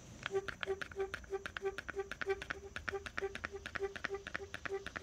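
Husky trigger clamp set up as a spreader, its trigger pumped in short quick strokes as the bar ratchets the jaws apart. Each stroke gives a click with a short squeak, about three a second.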